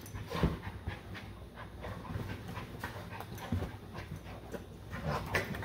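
Labrador and Lucas terrier puppies play-wrestling on a fabric dog bed: irregular scuffling of paws and bodies, with the dogs panting.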